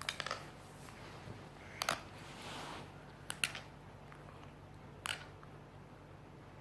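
A child's teeth grinding (bruxism): short grating clicks of tooth on tooth, a quick run of them at the start, then pairs about two and three and a half seconds in and a single one about five seconds in.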